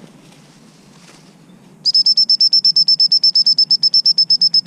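Gundog whistle blown as a rapid, even series of short high pips, about ten a second, starting about two seconds in: the recall signal calling the dog back after it has picked up the ball.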